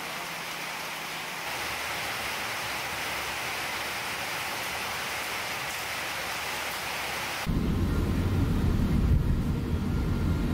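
Steady heavy rain falling, an even hiss. About seven and a half seconds in it cuts abruptly to the louder, low steady rumble of a vehicle driving, heard from inside.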